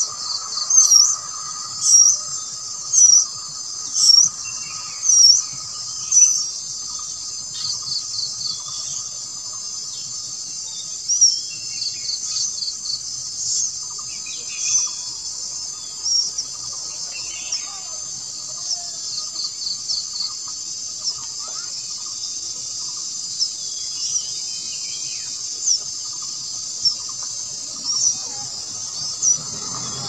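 A steady, high insect chorus, with short high-pitched bird chirps over it. The chirps come about once a second for the first few seconds and are scattered after that.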